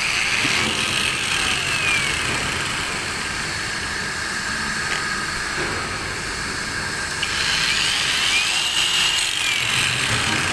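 Hikoki electric cutter running steadily, its motor whine sliding up and down in pitch twice.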